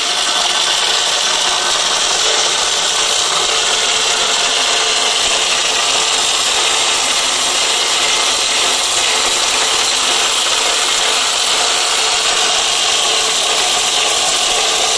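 Electric olive mill running and grinding whole olives into paste: a loud, steady grinding noise over the motor's hum.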